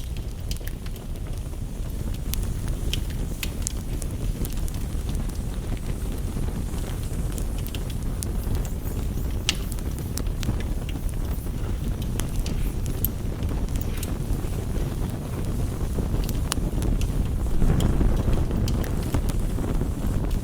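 Campfire crackling, with scattered sharp pops over a steady low rumble that swells a little near the end, mixed with rain tapping on a window.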